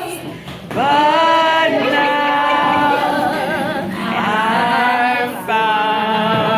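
Voices singing without instruments in long, held notes, some with vibrato.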